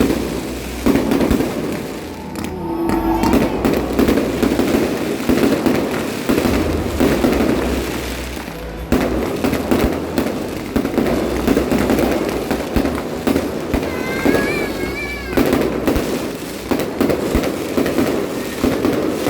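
Fireworks and firecrackers going off in a dense, continuous barrage of cracks, pops and bangs.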